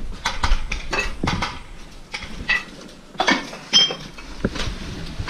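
Footsteps crunching over broken tiles and rubble: irregular sharp clinks and knocks, some with a brief ringing, in clusters every second or so.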